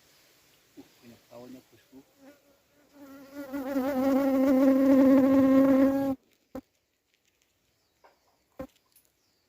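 A flying insect buzzing close to the microphone for about three seconds, a steady, slightly wavering drone that rises in loudness and then cuts off abruptly. A few short faint sounds come before it.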